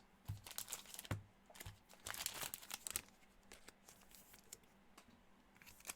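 Faint rustling and soft clicks of trading cards being handled, slid and flipped, with a short busier stretch of rustling about two seconds in.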